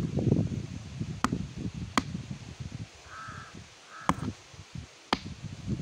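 Close eating sounds as santol fruit is bitten and chewed, with several sharp clicks spread through. A bird calls twice, two short calls, a little past the middle.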